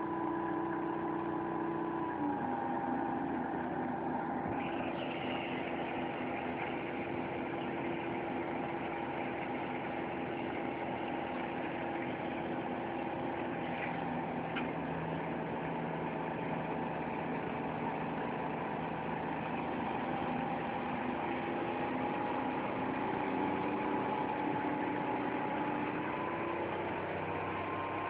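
Truck engine running steadily while a gondola dump trailer is unloaded. Its tones step down in pitch about two seconds in.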